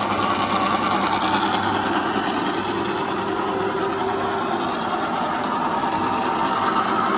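Victoria universal milling machine running: a steady mechanical hum and whir from its motor and gear drive, even in level throughout.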